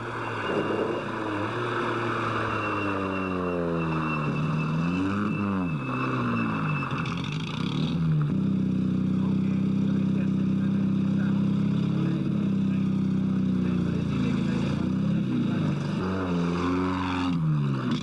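Rally car engine heard from inside the cabin, driven hard. Its pitch climbs and falls back sharply at the gear changes, several times, with a few seconds of steady high revs in the middle, over road noise.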